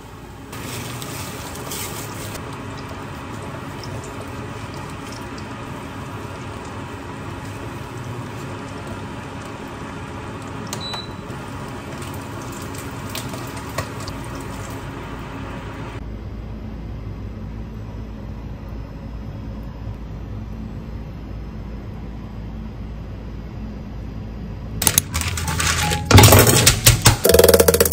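Kitchen sounds: a steady rushing noise, then dishes and utensils clattering loudly in the last few seconds.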